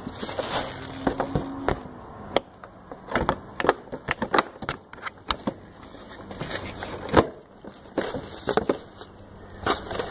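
Handling the plastic parts of a cordless mower's rear discharge: irregular clicks, knocks and scraping rustles as the plastic mulching plug is worked out and the grass bag is hooked on. The sharpest knock comes about seven seconds in.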